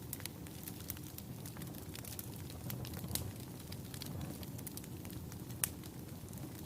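Wood fire burning in a fireplace: a steady low rumble of flames with irregular sharp crackles, and one louder pop near the end.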